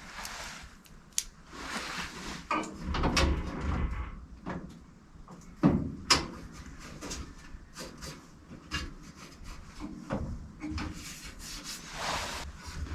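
Clamps being put on a steel repair panel against the car body: irregular sharp clicks and knocks with short bursts of metal scraping and rubbing as the panel is pulled into place.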